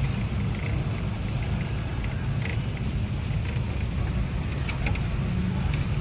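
Angkot minibus engine running with a steady low rumble, heard from inside the passenger cabin, with faint street noise.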